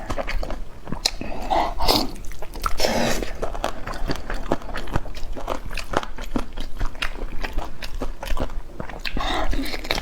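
Close-miked eating sounds: biting and chewing with a steady run of wet mouth clicks and smacks, and a few louder, breathier chews scattered through.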